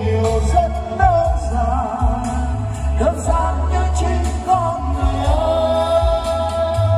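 A man singing a Vietnamese love song live into a handheld microphone over a karaoke backing track with a steady bass beat, amplified through DB Acoustic line-array event speakers. He holds one long note near the end.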